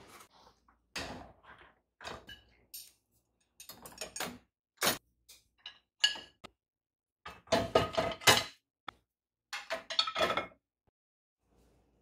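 Plates and cutlery being loaded into a Bosch Serie 4 dishwasher, clinking against each other and the wire racks in a series of separate clinks and clatters, the busiest cluster past the middle.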